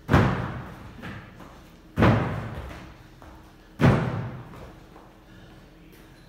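Box jumps onto a wooden plyo box: three heavy landing thuds about two seconds apart, each ringing on in the hall's echo.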